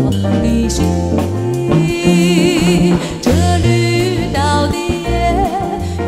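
Background music: a song with a singing voice over a bass line.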